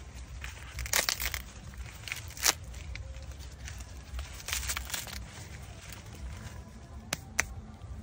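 Fresh green corn husks being torn and peeled back by hand from ears on the stalk: crisp leafy rips and rustling in several short bursts, with a sharp snap about two and a half seconds in and two quick clicks near the end.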